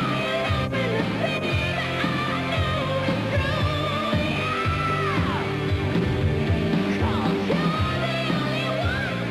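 Rock song playing, with a singing voice over the band.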